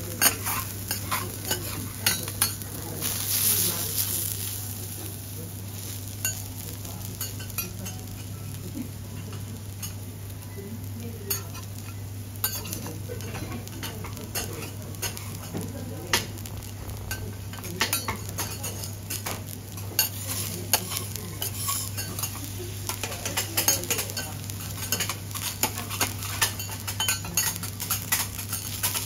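Metal teppanyaki spatulas clicking and scraping on a hot iron griddle while food sizzles, over a steady low hum. A louder burst of sizzling comes about three seconds in.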